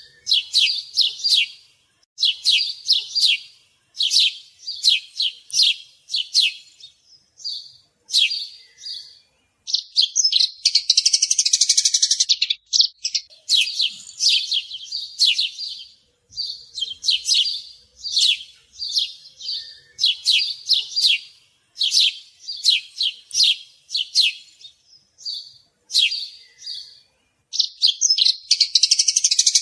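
A pet bird chirping in short, high-pitched notes, grouped in quick runs of a few calls. About ten seconds in, and again near the end, it breaks into a longer, fast, rattling trill.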